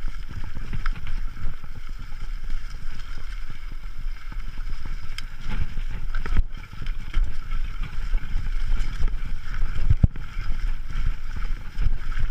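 Mountain bike rolling over a leaf-covered dirt trail, heard from a camera on the bike: steady wind rumble on the microphone and tyre noise, with scattered knocks and rattles as the bike goes over bumps.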